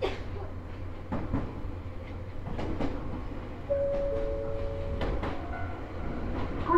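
Ohmi Railway electric train running, heard from the driver's cab: a steady rumble with pairs of wheel clicks over rail joints. Partway through, a level-crossing warning alarm sounds briefly as the train passes the crossing.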